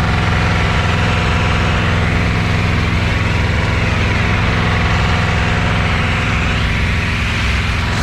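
Engine of a pressure washer unit running steadily at idle after being restarted on a boosted battery, with a fainter higher tone that wavers up and down in pitch twice.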